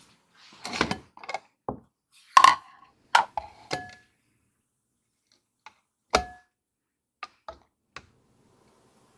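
Kitchenware being handled: a string of clicks and knocks from a plastic flour sifter and its lid and from glass bowls, the loudest knock about two and a half seconds in. Two of the glass knocks ring briefly with a clear tone.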